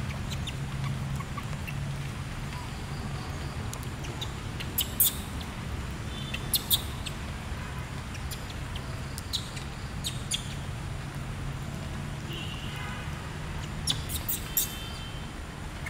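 Scattered short, sharp high chirps over a steady low hum, a couple of quick pairs about five to seven seconds in and a small cluster near the end, with one brief pitched call just before it.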